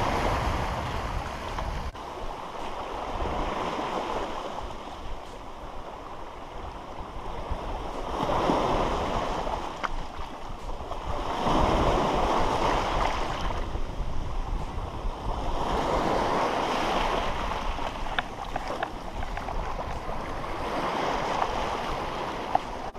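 Small sea waves breaking and washing up over a cobble beach, surging in and ebbing back every four seconds or so.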